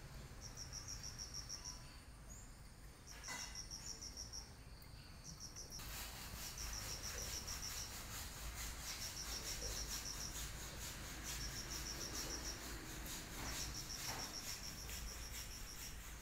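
Faint insect chirping: a short, high, pulsed trill repeated every second or two, with a steady hiss joining about six seconds in.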